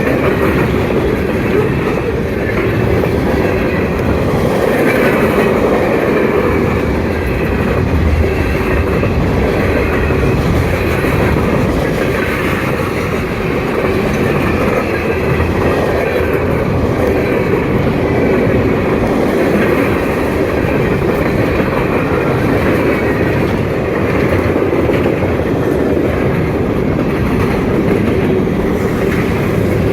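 Freight train rolling steadily past at track side, its steel wheels running on the rails.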